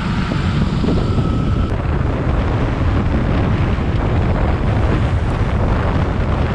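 Wind rushing and buffeting over the microphone on a moving motorcycle, with the KTM Duke 200's single-cylinder engine running underneath at road speed.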